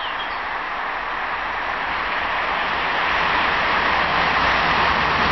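Intercités Paris–Toulouse passenger train approaching along the track, its rushing rail noise growing steadily louder.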